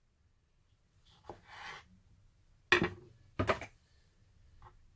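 A kitchen knife slicing a zucchini lengthwise on a plastic cutting board: a short rasp of the blade through the flesh, then two sharp knocks on the board about two thirds of a second apart, and a faint click near the end.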